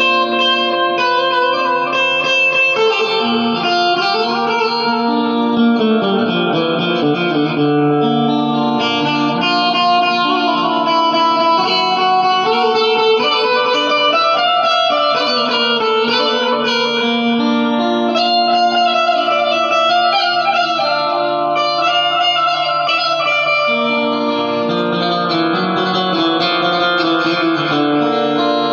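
Indian banjo (bulbul tarang), a keyed string zither, playing a continuous melody of quick plucked notes over sustained lower strings.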